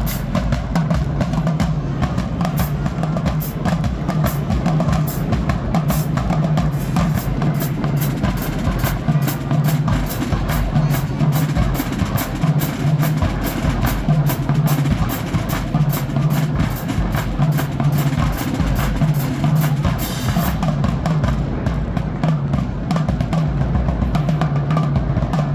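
Marching band drumline playing a fast, steady percussion feature: snare and tenor drums struck in rapid strokes over repeating marching bass drum tones, with cymbals.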